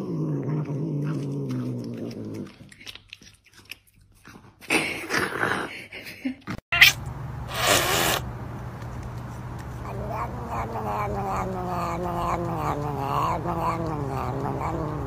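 Domestic cats: a low, slowly falling growl in the first two seconds or so, a few short noisy bursts in the middle, then one long, wavering yowl over the last five seconds.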